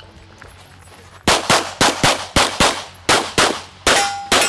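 Semi-automatic pistol fired in fast pairs: about ten shots starting a little over a second in, during a practical shooting stage run. A short ringing tone follows a shot near the end.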